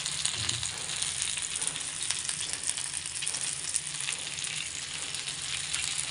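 Small masala-coated whole fish shallow-frying in oil in a flat pan: a steady sizzle with a scatter of small crackles.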